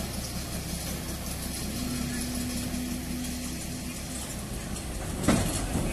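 Recovery truck's engine running steadily at idle, a low rumble with a faint steady tone. A short loud burst cuts in about five seconds in.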